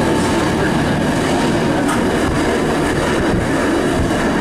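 1951 PCC streetcar running along the street track, heard from inside the car: a steady rumble of steel wheels on the rails, with a few faint clicks.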